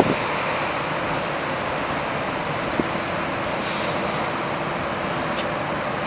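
Steady rushing background noise with a faint low hum and one small click about three seconds in.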